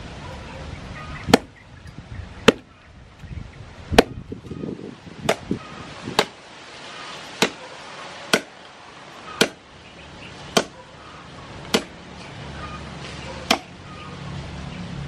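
Meat cleaver chopping a raw pork leg on a thick round wooden chopping block: about a dozen hard, separate strikes, roughly one a second.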